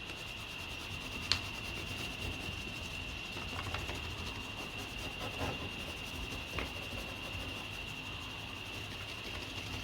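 Pencil scratching and paper rubbing while a paper template is marked out against a metal panel, with a couple of sharp ticks. A steady high-pitched whine runs underneath.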